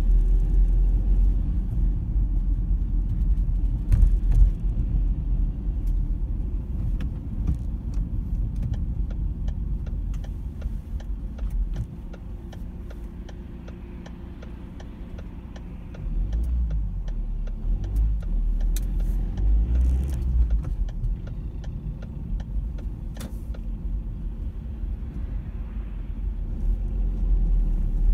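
Car interior noise while driving: a steady low engine and tyre rumble with faint light ticks. It drops quieter for a few seconds in the middle, then picks up again.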